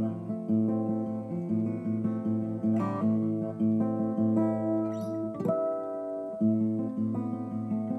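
Steel-string acoustic guitar being fingerpicked: a flowing run of single plucked notes ringing over each other, with a short break about five and a half seconds in before the picking starts again.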